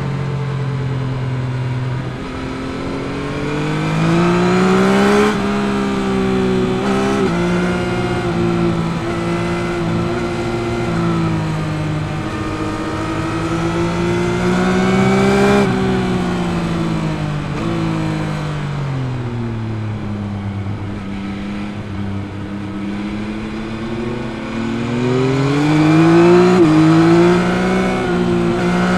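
2021 Yamaha MT-09's 890 cc three-cylinder CP3 engine under hard riding, the revs climbing with short dips at upshifts a few seconds in and near the end, and falling away in the middle as the throttle is rolled off, then building again.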